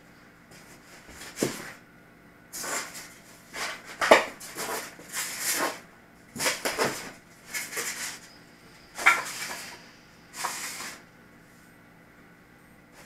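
Packaging being handled: a run of short crinkling rustles, about eight in ten seconds, with a couple of sharp knocks, as foam model-airplane parts in plastic wrap are lifted out of a styrofoam box.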